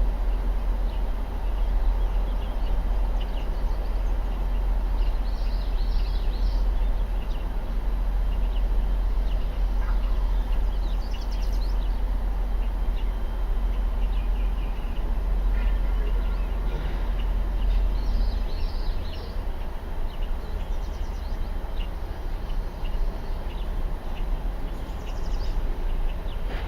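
Steady low rumble that eases off about two-thirds of the way through, with birds chirping in short bursts now and then.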